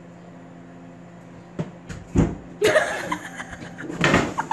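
A cardboard box tumbling down a wooden staircase: a few knocks, then bursts of bumping and scraping about two and a half seconds in and again near the end.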